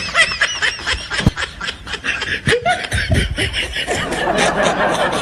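High-pitched laughter, a fast run of short snickering bursts repeated several times a second.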